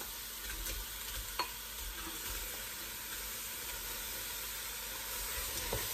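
Fresh prawns sizzling in a hot, dry pot with no oil, stirred with a wooden spatula: a steady hiss with one light tap about a second and a half in.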